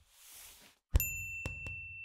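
Logo sound effect: a soft whoosh, then about a second in a hit that sets off a bright, bell-like ding ringing on one steady high tone, with two quick knocks under the ring.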